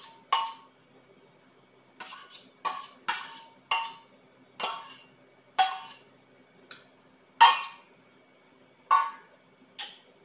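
A utensil knocking and scraping against a stainless steel pan as food is scraped out of it. There are about a dozen irregular sharp clinks, each with a short metallic ring.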